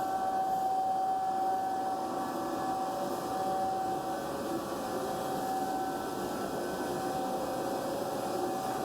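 BTA deep hole drilling machine running, a steady machine hum with a constant whine in several tones.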